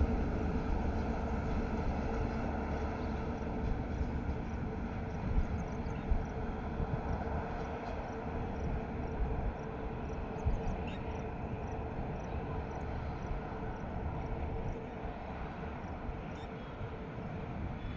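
Twin WDM3A Alco diesel locomotives working hard up a gradient, their deep engine rumble heard from a distance as the train pulls away, slowly fading.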